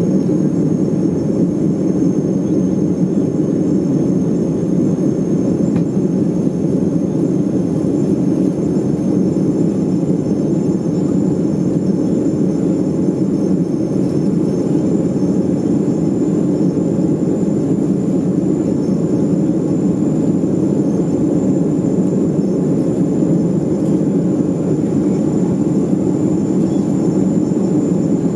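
Steady cabin noise of a Boeing 737 in flight: jet engines and rushing air heard from inside the cabin as a constant low rumble, with a thin, steady high whine above it.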